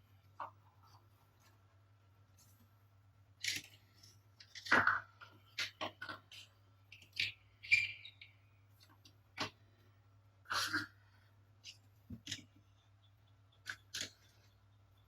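Small plastic toys being handled: irregular sharp clicks and light knocks, a dozen or so at uneven intervals, with one short scrape about eight seconds in, over a faint steady hum.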